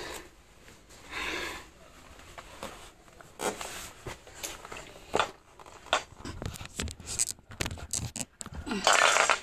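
Scattered taps and knocks of hands, knees and toys on a hardwood floor close to the microphone, thickest in the second half, with a louder breathy rustle near the end.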